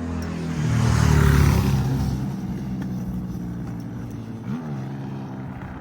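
Car engine and road noise heard from inside a moving car, swelling louder about a second in, then settling to a steady run.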